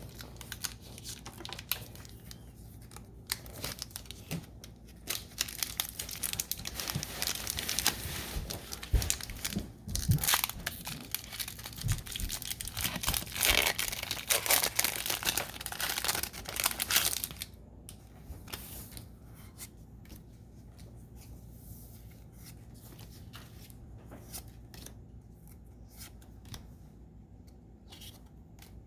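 Foil Pokémon booster pack wrapper being torn open and crinkled, a dense crackle that is loudest near the middle. After about 17 seconds it gives way to quieter, sparse clicks and rustles of the cards being handled.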